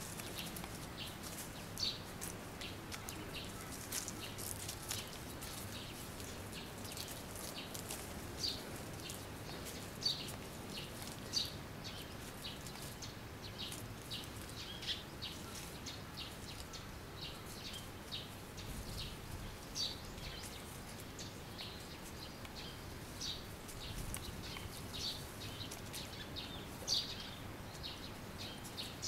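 Outdoor ambience: a steady faint background hiss with scattered short, sharp high-pitched ticks or chirps coming irregularly, a few every second or two.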